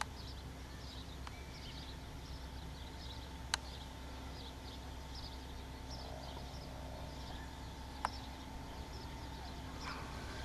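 Steady low hum of a distant fire truck's engine running its pump, under constant high chirping of birds; three brief sharp clicks stand out, about a third of the way in, most of the way in and just before the end.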